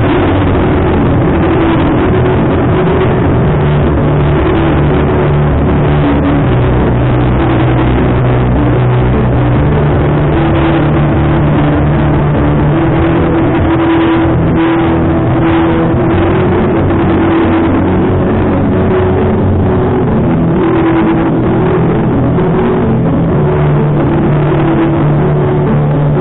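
Motorcycle engines running loud and continuously, their pitch shifting up and down every few seconds.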